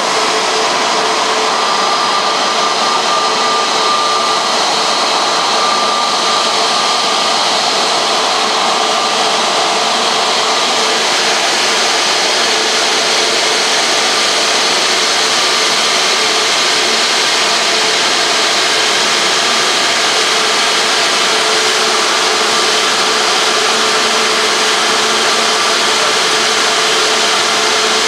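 Turbofan engines of an Airbus A320-family airliner running at low power as it taxis: a steady rush with a high whine held at an even pitch.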